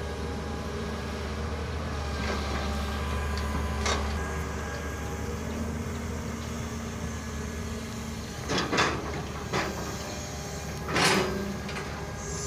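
Long-arm Hitachi UH07 hydraulic excavator working, its diesel engine running steadily under hydraulic load. A few short clanks and scrapes break through, the loudest about eleven seconds in, as the bucket reaches down and bites into the soil.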